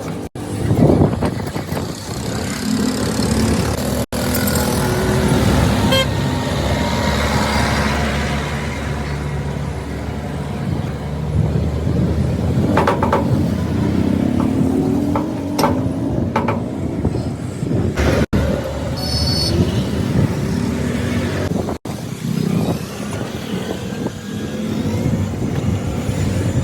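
Vehicle engines running with roadside traffic noise, with a few sharp knocks and several abrupt cut-outs.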